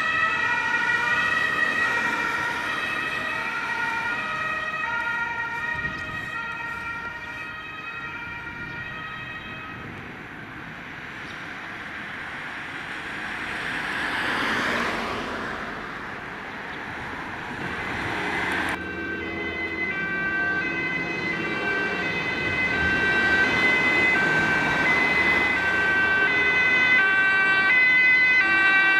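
German two-tone emergency siren (Martinshorn) alternating between its two notes on an ambulance, fading as the vehicle drives away. Traffic noise swells briefly in the middle. Then a second two-tone siren, on an emergency doctor's car, starts up and grows louder as it approaches.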